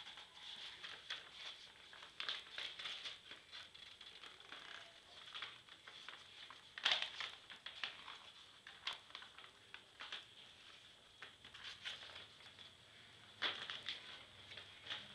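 Sheets of paper rustling and crinkling as they are handled and folded by hand, in short irregular rustles. The sharpest comes about seven seconds in and another near the end.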